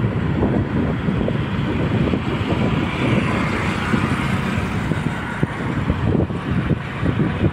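Wind buffeting the microphone of a moving two-wheeler, with the running engine and road noise underneath.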